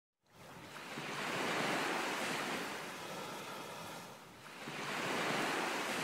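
Small waves washing up onto a sandy beach, the surf swelling twice a few seconds apart.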